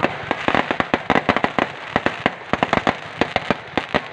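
Fireworks going off: a rapid, irregular string of sharp bangs with crackling between them, several bangs a second.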